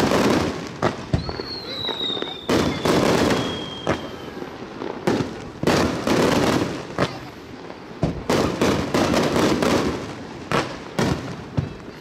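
Aerial fireworks finale barrage: shell bursts banging in quick clusters every second or two, with crackling between. A thin whistle slides slowly down in pitch about a second in.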